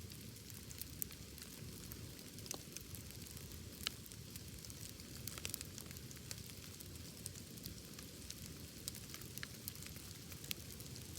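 Wood bonfire burning: a steady low rumble of flames with irregular crackles and sharp pops of burning wood, a few of them louder than the rest.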